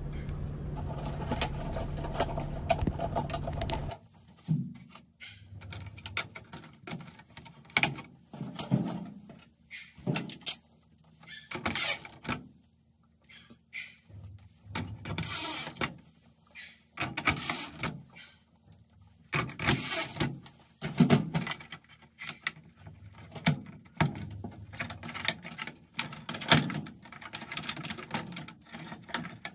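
A steady hum for about the first four seconds, which stops suddenly. After that come scattered clicks, taps and rustles of hand work on a washing machine's control panel: a nut driver on screws, a plastic board holder being fitted and wire connectors being handled.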